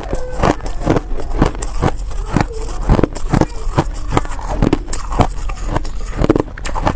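Crunchy chewing of a mouthful of buckwheat reshaped ice, the packed powdery ice cracking in a quick run of crisp crunches, about two to three a second.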